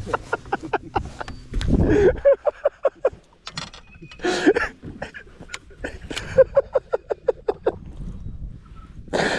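Baitcasting reel being cranked, a rapid run of ticks, with a cast partway through and then more reeling.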